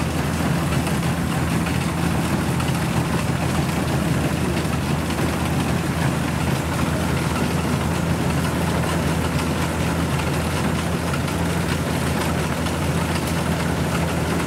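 Kubota DC-70 combine harvester's diesel engine running steadily while harvesting rice, a constant low drone.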